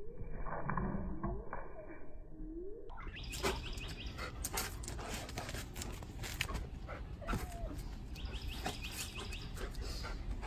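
Sounds of a dog, with frequent short clicks and knocks and, from about three seconds in, a bird trilling twice in the background.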